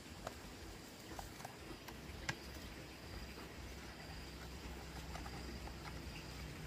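Faint scattered light clicks and taps, one sharper click about two seconds in, over a low steady hum that becomes more even from about four seconds in.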